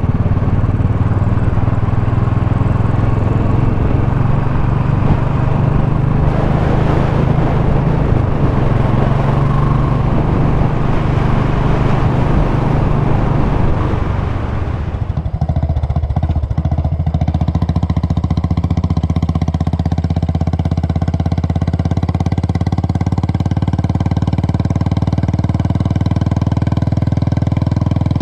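Royal Enfield Classic single-cylinder motorcycle engine running steadily at riding speed, heard from on the bike with wind noise over the microphone. About fifteen seconds in the sound changes abruptly to a steadier engine note with less wind.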